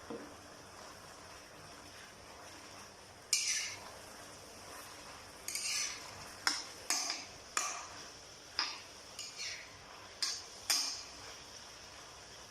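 A metal utensil scraping and clinking against a pan while stir-frying minced pork with basil leaves: one scrape about three seconds in, then a run of about ten short clinks and scrapes over a few seconds, over a faint steady hiss.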